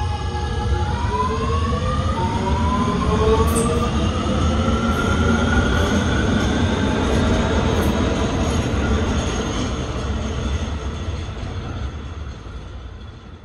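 R211A subway train accelerating: its propulsion whine rises in pitch in several stepped glides over a steady rumble of wheels on rail. The sound fades out near the end.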